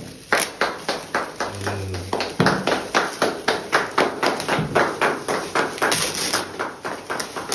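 Metallic foil gift wrap crinkling and crackling as it is pulled and torn off a large frame, in a quick run of sharp crackles, several a second.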